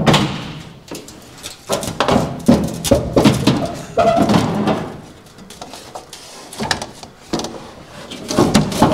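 Steel hood of a 1947 Dodge Power Wagon being handled and set down: a string of irregular metal clunks, knocks and scrapes. There is a quieter lull in the middle.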